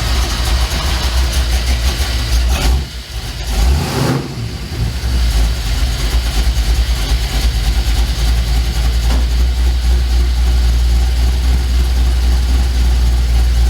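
1967 Mercury F250 truck engine running at idle just after being started, a steady low rumble that wavers for a moment about three to four seconds in, then settles; it is idling with the vacuum advance disconnected while the ignition timing is checked, at about 9 degrees.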